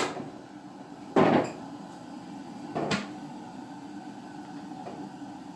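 Two hard clunks about a second and a half apart, the first louder, like something being closed or set down on a hard fixture.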